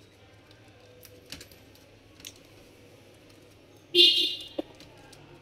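Small plastic clicks and handling noise as the cable connectors of a laptop motherboard are worked loose by hand, with a short, louder scrape about four seconds in and a click just after.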